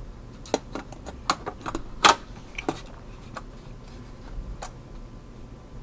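Sharp metallic clinks and taps as a metal SSD mounting plate and its screws are handled and fitted into a PC case's drive tray, a quick cluster of them with the loudest about two seconds in, then a few scattered ones.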